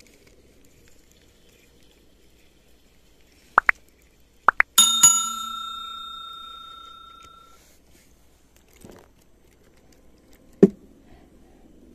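A small metal bell struck twice in quick succession, its clear ring fading out over about three seconds. It is preceded by a few light clicks and followed near the end by a single sharp knock.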